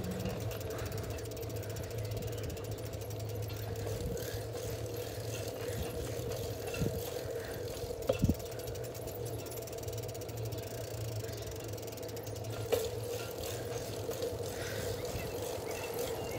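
Bicycle riding along an asphalt street: a steady low hum of rolling with light rattling, and a few sharp knocks, two close together about eight seconds in and another near thirteen seconds.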